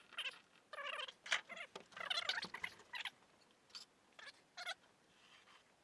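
A marking tool squeaking against the surface in a few drawn strokes, each a short wavering squeal, as a line is marked out; a few light ticks follow about four seconds in.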